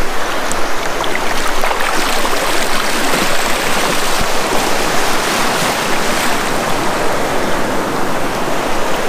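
Sea surf washing onto the shore, a steady rushing noise with no breaks.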